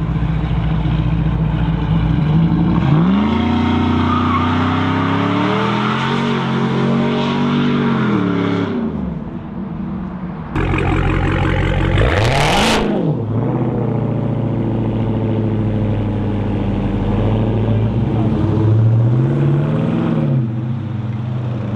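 A Ram pickup truck's engine revs up and is held high for several seconds during a burnout that leaves a cloud of tyre smoke, then drops back. After that a Dodge Challenger's engine blips sharply once, settles, and revs briefly again as the car pulls away.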